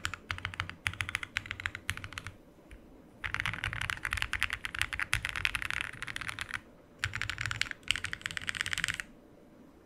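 Fast typing on a mechanical keyboard fitted with JSA-profile PBT keycaps: rapid runs of keystroke clacks broken by a couple of short pauses, stopping about a second before the end.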